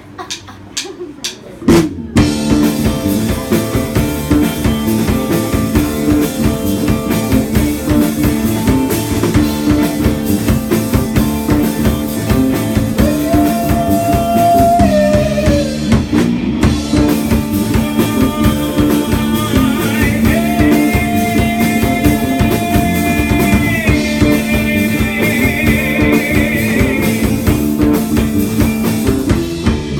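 A live rock band of drum kit, bass guitar and guitar playing an instrumental passage. A few plucked notes open it, and the full band comes in about two seconds in. Later the guitar plays a lead line with bent, wavering notes.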